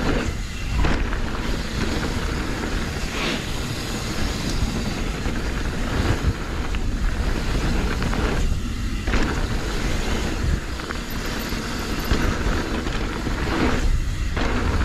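Wind buffeting the camera microphone and knobby tyres rolling over a dirt trail as a YT Decoy mountain bike is ridden downhill, with a steady rumble and occasional knocks and rattles as it hits bumps.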